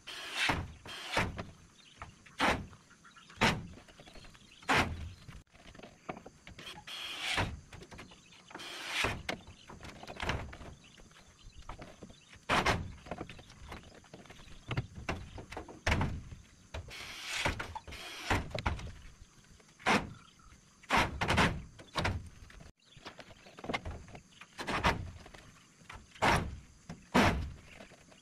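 Hammer blows nailing wooden planks to a shed post: sharp knocks about once a second in uneven runs, with short pauses between.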